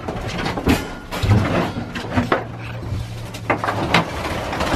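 A flock of pen-raised quail fluttering and scrambling in a small block-walled pen, with sharp knocks and scuffs from a pole net and footsteps on the plywood floor. A low steady hum runs for about two seconds in the middle.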